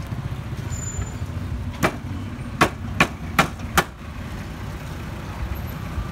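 Meat cleaver chopping on a wooden chopping block: five sharp knocks between about two and four seconds in, over a steady low rumble of street traffic.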